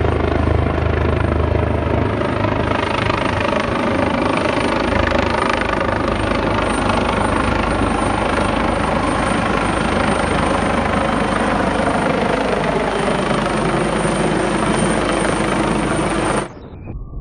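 Helicopter flying overhead on approach to land: a loud, steady mix of rotor beat and engine noise, its tones sinking slightly in pitch in the second half. It cuts off suddenly near the end.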